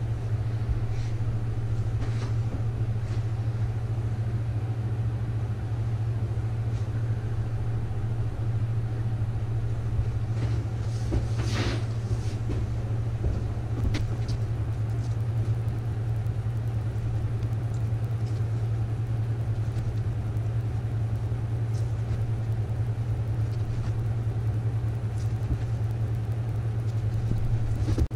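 A steady low machine hum runs throughout, with a few short knocks and clunks near the start and around the middle.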